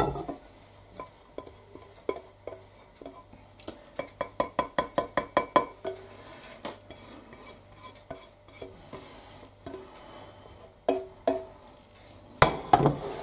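A spatula scraping and knocking cooked vegetables out of a frying pan into a bowl: a quick run of light knocks, about five a second, a few seconds in, then scattered knocks with a louder cluster near the end.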